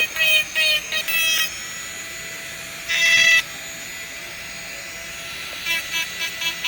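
Background music with a quick pulsing pattern of high notes. It drops out for a few seconds, leaving a steady hiss broken by one short, loud pitched burst, then the pulsing returns near the end.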